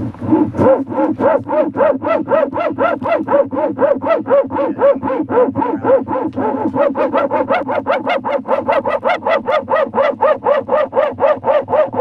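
A dog barking over and over at a steady pace, about four barks a second, each bark rising and falling in pitch.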